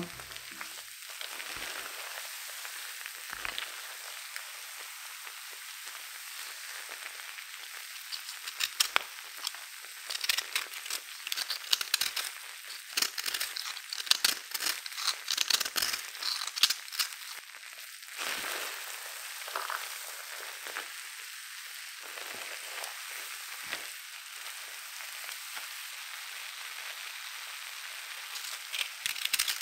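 Bath bomb fizzing under foamy slime, a steady fine hiss. Bursts of crunching and crackling come as fingers squeeze and a utensil cuts into the bath bomb's crumbly dry core, mostly between about 8 and 17 seconds in and again near the end.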